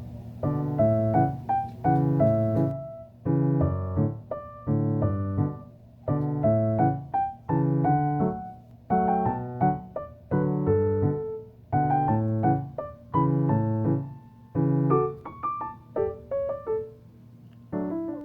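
Background music: a light tune of repeated chords in a steady, even rhythm.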